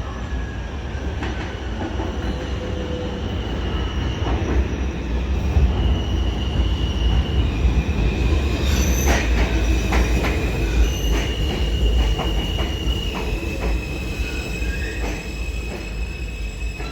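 New York City subway train running on steel rails: a deep steady rumble with the wheels squealing in long, high, steady tones. A quick run of clicks and clacks comes about nine to twelve seconds in, where the sound is loudest.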